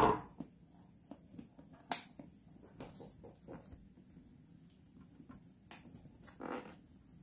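Soft handling noises of a cellophane-wrapped cardboard box: a sharp knock at the start as scissors are set down on the table, then scattered light taps, clicks and faint plastic crinkles as the box is shifted about.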